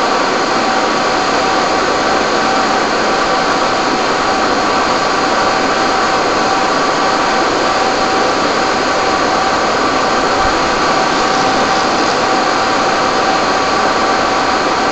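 Steady, unbroken machine noise with a faint constant whine, typical of fire engines running their water pumps at high revs while hose and ladder streams spray.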